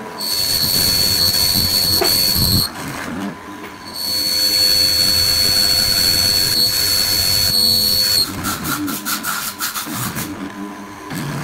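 Benchtop hollow-chisel mortiser boring into a softwood leg: two long plunges, each a loud steady high-pitched whine, with a short break between them. About eight seconds in the whine stops and a fast run of ticks follows.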